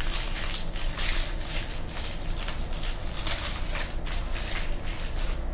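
Trading cards being handled and flipped through at close range: a rapid, irregular run of papery swishes and flicks.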